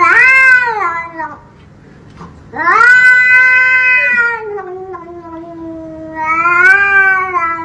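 Grey shorthaired cat yowling at a hand reaching toward it: three loud, long, drawn-out calls, the middle one the longest and sinking in pitch toward its end.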